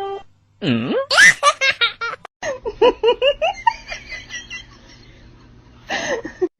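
A person laughing hard in a quick run of high-pitched bursts, starting with a voice that slides down and then up about a second in.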